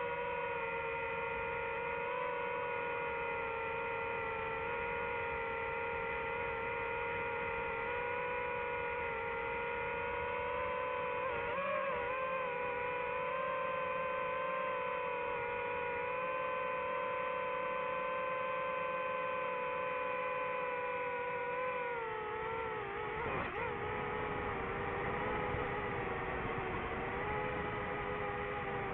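DJI FPV quadcopter's motors and propellers whining in flight, a steady high-pitched hum. Its pitch wavers about a third of the way in, then dips and climbs back about three-quarters of the way through as the throttle changes.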